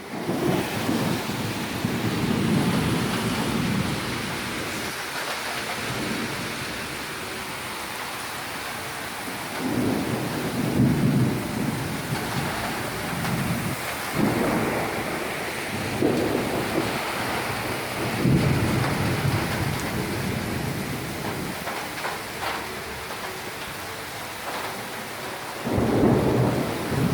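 Heavy thunderstorm rain pouring steadily, with low rumbles that swell and fade several times, a few seconds apart.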